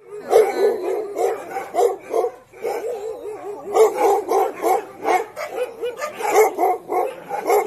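A pack of sled huskies barking and yipping together, many short calls overlapping throughout.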